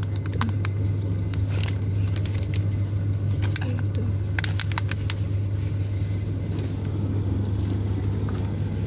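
Plastic snack packets crinkling in short crackles as they are picked up and handled on a shop shelf, mostly in the first five seconds, over a steady low hum.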